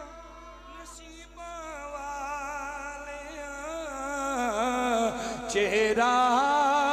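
A man's voice singing a long, wavering melismatic line of a Punjabi naat through a microphone and PA, rising and falling in pitch and growing louder toward the end.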